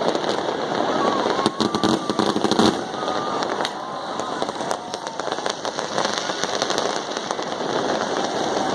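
Fireworks going off, a dense run of crackling bursts with a thicker cluster of sharp pops about two seconds in.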